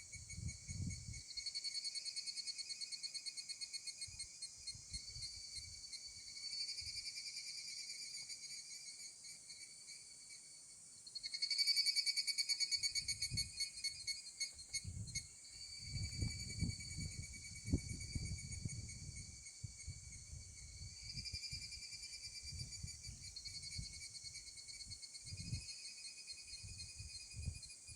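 Insects singing in fast, rapidly pulsed trills, several overlapping, with a louder trill starting about eleven seconds in. Low rumbles come and go underneath, like wind on the microphone.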